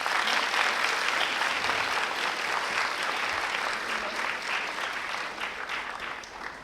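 A large audience of students clapping: the applause starts at once and slowly dies away toward the end.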